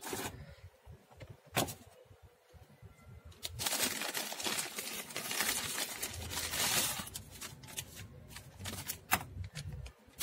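Clear plastic bag crinkling and rustling as it is handled and pulled off a boxed electronic unit, with scattered crackles and a few sharp clicks. The rustling is heaviest for about four seconds in the middle.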